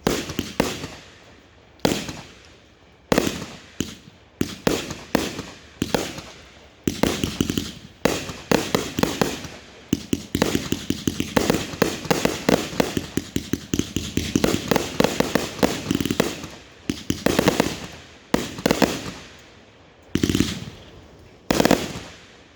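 Consumer firework cake going off: separate bangs at first, then a rapid, dense string of reports and crackling for about ten seconds in the middle, then a few single booms near the end.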